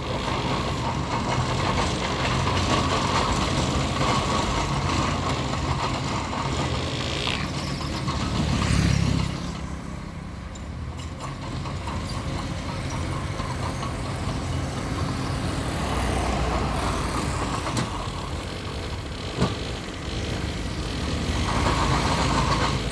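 Bulldozer's diesel engine working as the machine pushes dirt, running steadily, swelling louder about eight seconds in and then dropping back suddenly. Late on, a single sharp knock.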